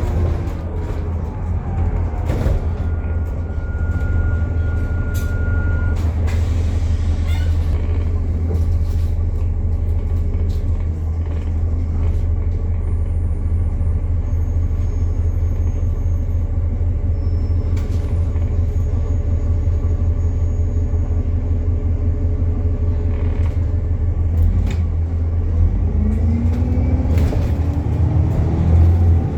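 Alexander Dennis Enviro400 MMC double-decker bus under way, with a loud axle whine over the steady drive drone. The whine falls in pitch as the bus slows at the start and rises again as it speeds up near the end.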